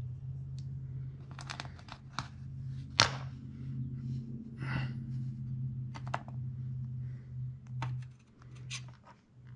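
Hands working a thin sheet of sculpting wax with a small metal tool on a wooden board: scattered rustles and small clicks, with one sharp tap about three seconds in, over a steady low hum.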